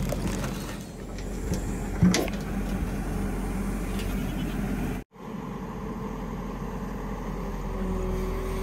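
Excavator's diesel engine running steadily, with a single knock about two seconds in.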